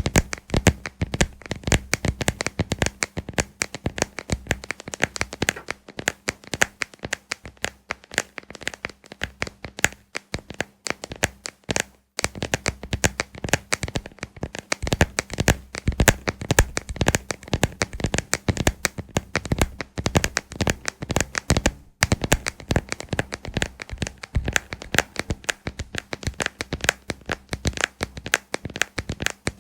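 Fingers tapping and scratching on a moon lamp: a dense, fast run of small clicks and taps, briefly pausing about twelve seconds in and again about twenty-two seconds in, over a faint low hum.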